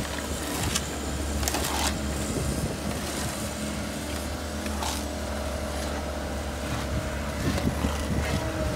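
Komatsu excavator's diesel engine running steadily, with hoes and shovels scraping and knocking in wet landslide mud now and then.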